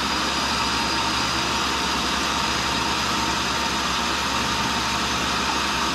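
A tool and cutter grinder running steadily with no grinding going on: an even machine hum with a thin high whine over it.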